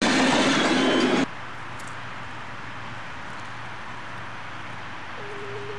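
Steady hiss of steam from the standing Victorian Railways R-class 4-6-4 steam locomotive R707, with a low hum underneath. The first second is a much louder rushing noise that cuts off abruptly, and a steady tone comes in near the end.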